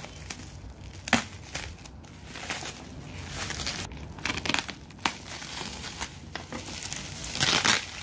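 Plastic bubble wrap crinkling and tearing as it is slit with a knife and pulled off a cardboard box. A sharp crackle comes about a second in, and the loudest rustling comes near the end as the wrap is peeled back.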